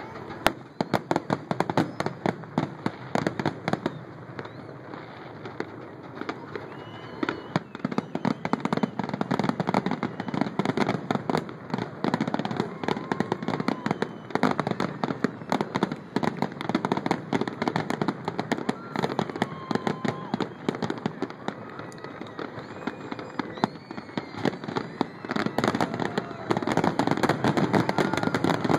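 Fireworks finale barrage: a rapid, unbroken run of shell bursts and crackling reports, many a second.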